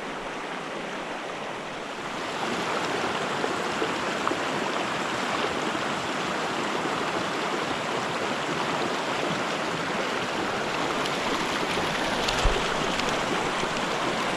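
Small mountain creek running: a steady wash of flowing water that grows louder about two seconds in, with a single soft knock near the end.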